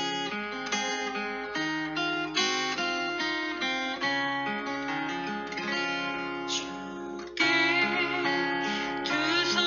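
Instrumental gospel music: acoustic guitar picking a run of quick ringing notes. About seven seconds in, the music gets louder as a sustained melody line with vibrato joins.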